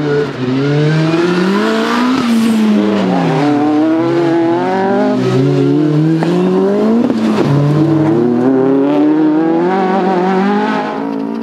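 Autocross car's engine, an Audi A4 saloon, revving hard. Its pitch climbs and drops back over and over as the driver accelerates, lifts and shifts.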